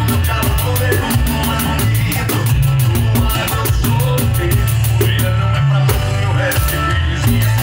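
Pandeiro played along to a recorded gaúcho band song with a strong bass line, its jingles ticking in a quick, steady beat over the music. The jingle ticks drop out for a moment about five and a half seconds in and again shortly before the end.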